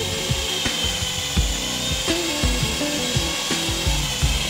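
Small indoor RC helicopter in flight: the steady high whine of its electric motor and spinning rotor, shifting slightly in pitch.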